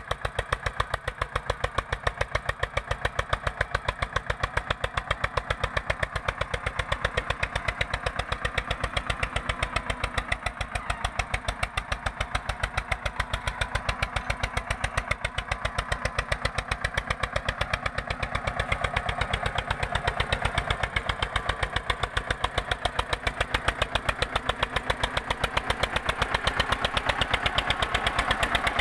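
Eicher 242 tractor's diesel engine running steadily under load while pulling a 16-disc harrow, its exhaust beating in an even, regular rhythm. It grows somewhat louder near the end.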